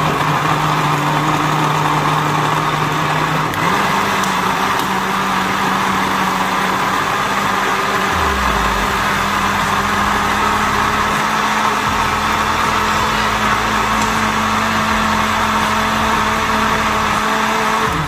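A 700 W electric countertop blender running steadily, blending soursop pulp with water and sugar into juice. Its motor pitch steps up a little a few seconds in, and it cuts off abruptly at the very end.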